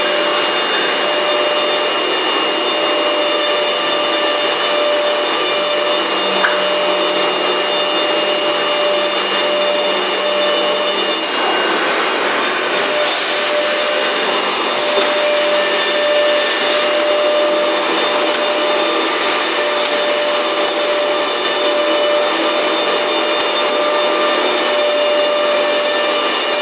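Four-spindle PCB CNC drilling and routing machine running: the steady high whine of its spindles over the continuous rush of the dust-extraction suction. The whine briefly changes pitch about eleven seconds in.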